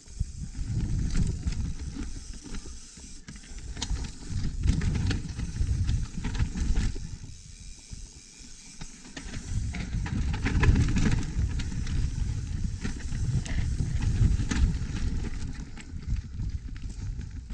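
Mountain bike descending a steep dirt trail: a rough, swelling rumble of tyres over dirt and rocks and wind buffeting the camera's microphone, with frequent sharp clicks and rattles from stones and the bike's chain and frame.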